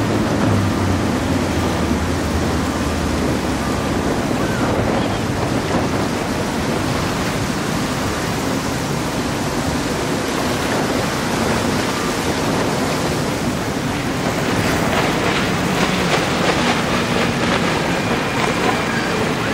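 Powerboat engines running under a steady rush of wake and waves, with wind buffeting the microphone.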